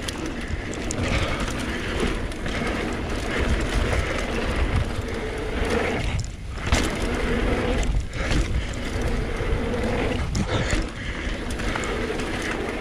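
Mountain bike descending dirt singletrack: knobby tyres rolling over dirt and rocks, with knocks and rattles from the bike and wind rumbling on the bike-mounted camera's microphone. The noise eases briefly about six seconds in.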